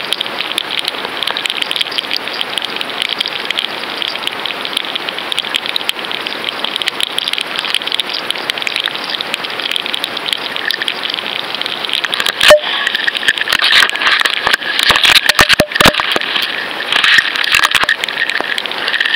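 Underwater ambience heard through a fishing camera's housing: a dense, steady crackling hiss. A loud sharp knock comes about two thirds of the way in, followed shortly by a cluster of sharper knocks.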